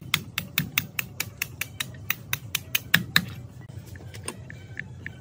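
Hammer rapidly tapping the rusty metal parts of an old overlock sewing machine being taken apart, about five sharp metallic strikes a second. The tapping stops about three seconds in, leaving a few faint clinks.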